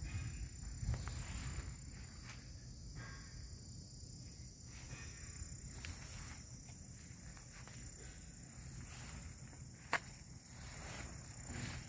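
Outdoor ambience: low wind rumble on the microphone under a steady high-pitched insect hum, with one sharp click about ten seconds in.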